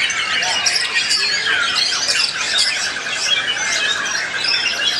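Several caged white-rumped shamas (murai batu) singing over one another in a dense mix of whistles and chatter, with a rapid trill about two seconds in.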